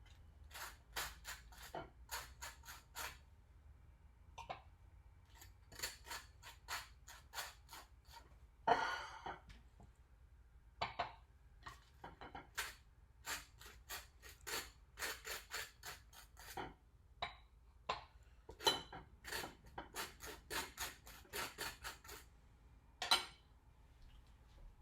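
Butter knife scraping butter across toast in many short repeated strokes, with a couple of louder scrapes or knocks against the plate.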